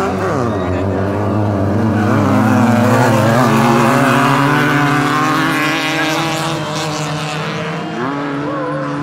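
Class 9 off-road race buggies' engines running hard on a dirt track, more than one engine heard at once. The pitch drops as a car goes by at the start, holds fairly steady through the middle and climbs again near the end.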